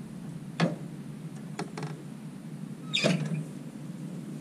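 A few short metal clanks and a brief rattle about three seconds in from a stand-on mower's newly fitted GrassFlap chute pedal and flap, as a foot works the pedal and steps off the platform.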